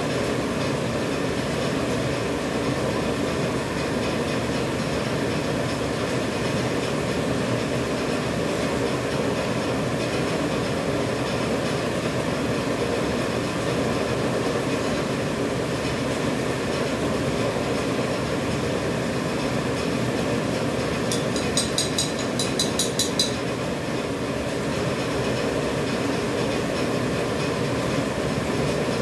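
Dental mask production machine running with a steady mechanical drone. About three-quarters of the way through, a quick run of sharp clicks lasts a couple of seconds.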